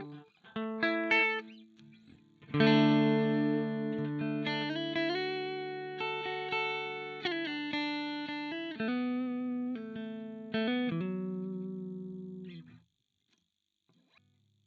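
Electric guitar played through a Dolamo D-14 delay pedal: a few struck chords, then a held chord with notes changing over it, fading and stopping about 13 seconds in.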